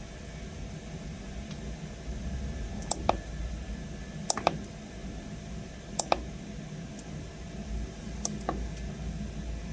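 Scattered sharp clicks, several in quick pairs, from buttons being pressed on a Chinese diesel heater's controller, over a steady low hum.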